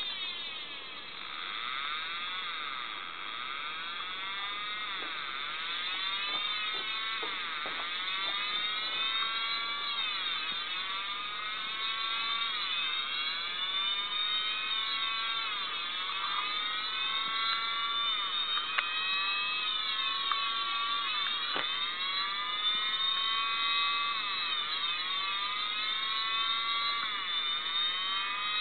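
Siren switching from a steady alert tone into a fast wail: several tones rising and falling together, one cycle roughly every three seconds.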